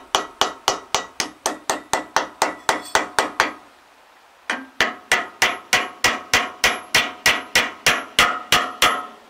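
A steel hammer striking the steel drive sprocket and shaft key on a CLAAS Rollant 46 baler roller, to drive them off the shaft. The blows are rapid and even, about four a second, each with a metallic ring, and stop for about a second near the middle.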